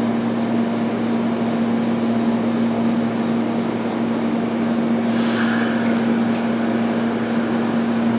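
Amtrak passenger train cars rolling slowly past at close range: a steady rumble with a constant low hum. About five seconds in, a thin high-pitched squeal joins and holds.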